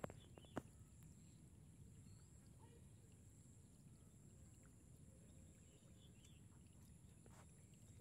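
Near silence: faint outdoor ambience with a steady low hum, broken by two short sharp clicks right at the start.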